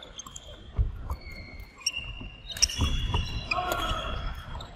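Court shoes squeaking on a polished wooden badminton court during play, with a few short high squeals, low footfall thuds and a couple of sharp smacks, the loudest about 2.6 s in.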